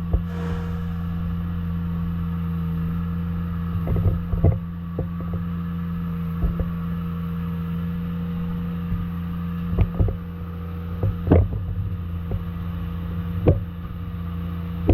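Small diesel engine of a mini excavator running at a steady speed, with a few sharp knocks and clunks scattered over it.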